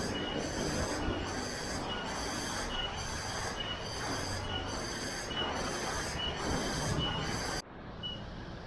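Shrill insects, cicada-like, calling in regular pulses about one and a half times a second over a steady rushing background; near the end the shrill pulsing cuts off abruptly, leaving a fainter ticking call.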